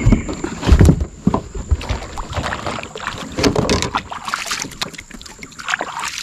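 A few low thumps and knocks in the kayak in the first second, then hands splashing and swishing in river water over the kayak's side as they are rinsed.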